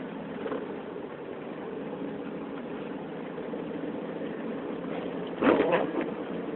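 Ford Mustang's engine and road noise heard from inside the cabin, a steady even rumble while driving on a snow-covered road. A brief louder noise cuts in about five and a half seconds in.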